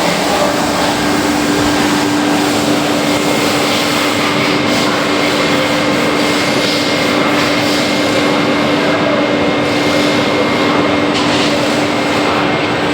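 CNC machine running: a loud, steady mechanical noise with a constant low hum and a faint high whine.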